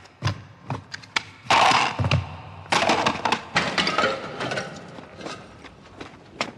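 Pottery and other objects being smashed and knocked over: a run of sharp knocks and clatters, with two longer crashes, about one and a half and about three seconds in.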